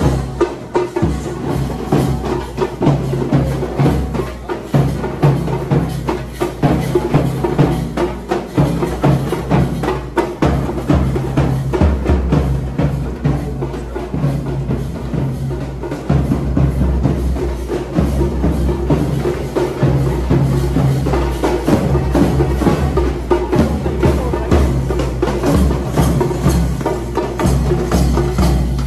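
Cadet band drums beaten in a fast, continuous marching rhythm, with a bass drum underneath.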